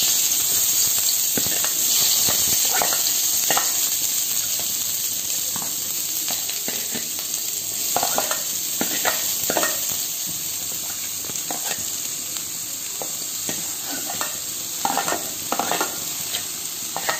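Chopped onions sizzling as they fry in hot oil in a kadai, with scattered clicks and scrapes of a steel ladle and steel plate against the pan as the onions are pushed in.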